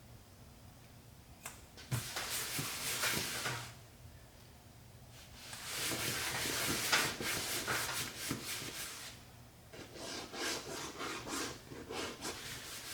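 A hand rubbing a thick conditioner into the dry vinyl of a vintage Porsche Recaro seat, in spells of quick scrubbing strokes. A short spell comes about two seconds in, a longer one from about six seconds in, and choppier, quicker strokes near the end.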